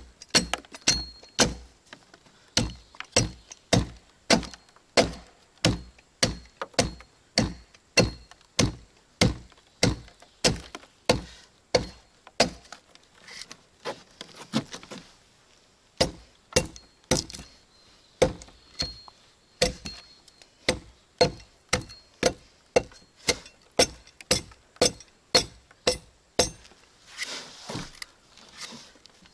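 A hand tool striking repeatedly, about two sharp blows a second, with a break a little before the middle and a short scraping rustle near the end.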